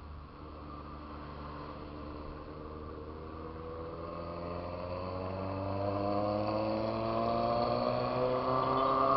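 Motorcycle engine accelerating in one long pull, its pitch rising steadily and growing louder over several seconds.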